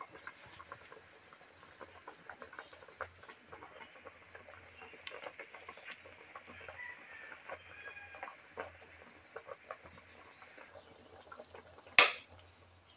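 Fish soup broth simmering in a wok, with many small scattered pops and crackles of bubbling. One sharp, loud click comes near the end.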